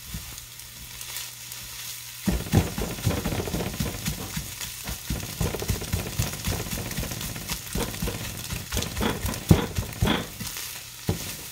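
Scrambled eggs sizzling in a hot oiled frying pan. From about two seconds in, a silicone spatula scrapes and knocks against the pan over the sizzle as the eggs are pushed around and broken up.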